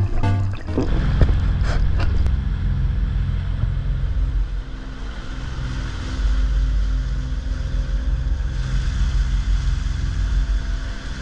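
An engine running steadily: a low, even drone with a few clicks in the first couple of seconds.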